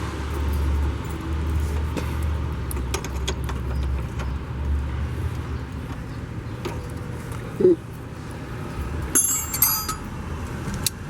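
Hand tools on metal: scattered clicks and clinks, with a bright metallic jangle a little past nine seconds, over a steady low rumble.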